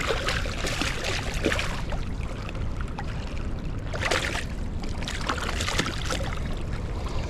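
Rushing river current with surges of splashing water, over a steady rumble of wind on the microphone.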